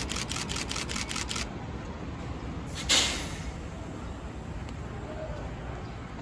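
JR West 287 series electric train standing at the platform before departure. A fast run of clicks, about five a second, stops after a second and a half. About three seconds in comes a short, sharp hiss of compressed air being let out, with a steady low rumble underneath.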